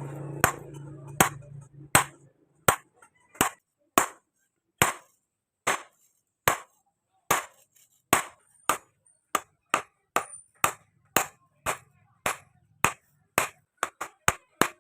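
Hammer blows on steel, being forged from a chainsaw bar: a steady series of sharp ringing strikes, about one and a half a second, quickening to about three a second near the end. A low steady hum is under the first two seconds and then stops.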